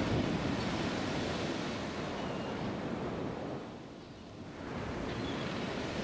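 Wind rushing over the microphone, a steady gusty noise that eases off briefly about four seconds in before picking up again.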